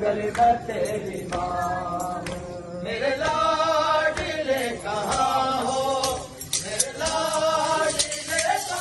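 Male voices chanting a Muharram noha, a mourning lament, in long melodic lines. A few sharp clicks come in over the chant toward the end.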